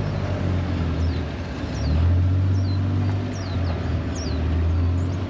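Utility side-by-side (UTV) engine running steadily on a dirt track, its low hum swelling about two seconds in. Over it, a bird gives a string of short, high, downward-sliding chirps.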